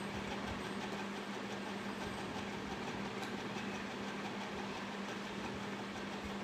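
Steady mechanical hum with an even hiss and a constant low tone, unchanging throughout, like a fan or similar appliance running in the room.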